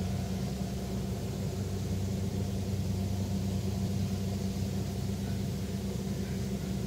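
Rice combine harvester's diesel engine running at a steady pace, an even low drone.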